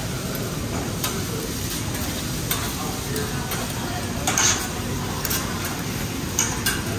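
Rice and vegetables sizzling on a hibachi flat-top steel griddle while metal spatulas scrape and tap against the plate. The sharp scrapes come several times, the loudest a little past halfway and two more near the end.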